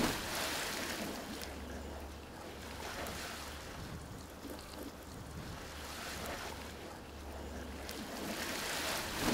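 Swimming pool water splashing and sloshing just after a person jumps in, with the water churning as he climbs out over the edge. A louder burst of noise comes right at the end.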